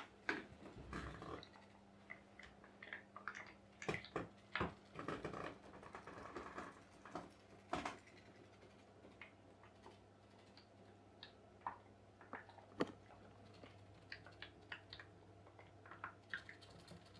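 Irregular clicks and ticks from a tea-light-heated pop-pop boat's aluminium-can boiler, bunched in the first half and sparser later, over a faint steady low hum.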